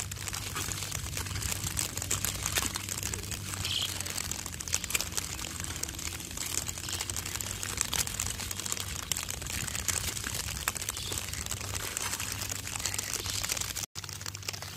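Hoes chopping and dragging through wet, waterlogged paddy mud: continual squelching and slopping with many small crackles and clicks. The sound cuts out for an instant near the end.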